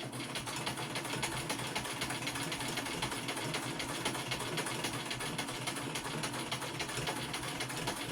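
1960 White sewing machine running steadily at speed, a fast even clatter of the motor and needle mechanism. It has not been oiled: stiff to get going but running fairly freely once moving, and the owner thinks it probably needs a little oil.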